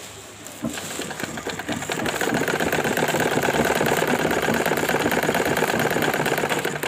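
Old portable Singer sewing machine running at speed, its needle stroking in a fast even rhythm as it stitches to test the new threading. It starts up about a second in, settles into a steady run and stops near the end.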